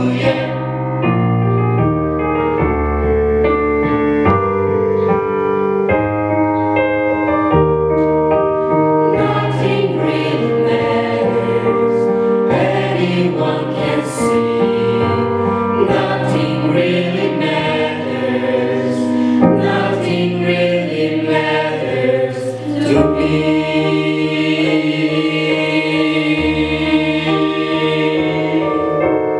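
Mixed choir of young men and women singing in harmony through microphones, ending on a long held chord over the last several seconds.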